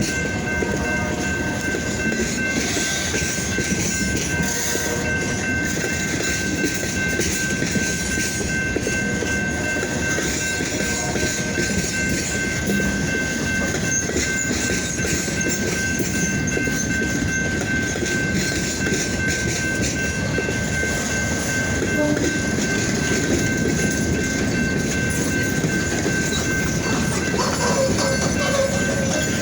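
A De Queen & Eastern freight train rolling by, its steel wheels running over the rails with a steady rumble. A thin, steady high tone rings through it the whole time.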